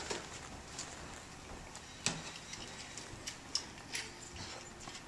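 About half a dozen scattered light clicks and knocks from video production gear (cables, cases, stand) being handled close to the floor.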